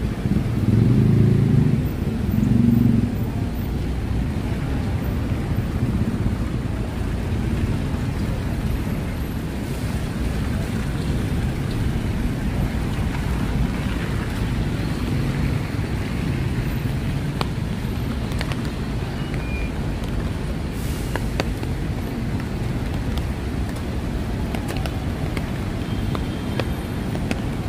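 Steady city traffic on rain-wet streets, with rain falling: a continuous wash of passing cars, a little louder in the first three seconds.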